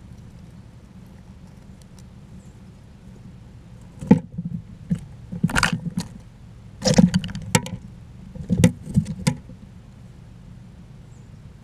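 Several bursts of knocks and scratchy scrapes as a chipmunk or squirrel moves around on the feeder, over a steady low hum.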